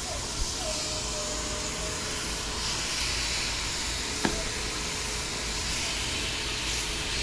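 Burger patties sizzling steadily on a hot griddle, the hiss swelling a little about three seconds in, with a single light click a little after four seconds.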